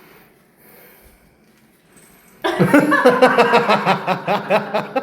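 A cat growling in a loud, wavering, pulsing yowl that starts about halfway through: a hostile warning aimed at a new kitten.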